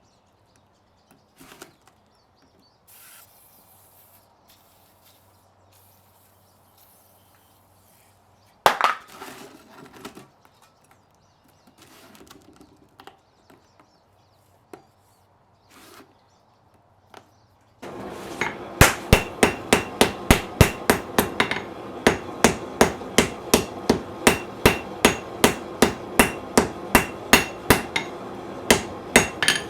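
Mostly quiet with scattered knocks and one loud metallic strike about nine seconds in. In the last ten seconds a hand hammer beats steel on an anvil, about two blows a second, over a steady rushing noise.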